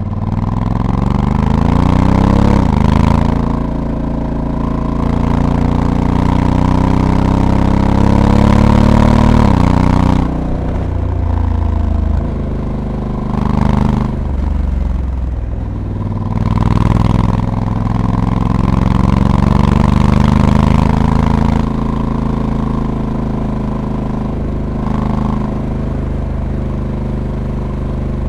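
Honda Africa Twin DCT's 1084 cc parallel-twin engine pulling under acceleration, its pitch climbing and then dropping abruptly at automatic dual-clutch upshifts about 3 and 10 seconds in. The engine revs up again before easing off to a lower, steadier note near the end.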